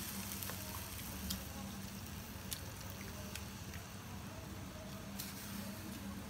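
Faint steady hiss with a low hum, broken by a few soft clicks as pieces of marinated raw chicken are lifted from a glass dish and laid on a foil-lined grill rack.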